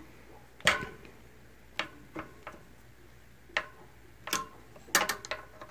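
Irregular sharp metallic clicks and clinks of a hand tool tightening the two mounting bolts on a hydraulic disc brake caliper, about a dozen of them with uneven gaps and a cluster near the end.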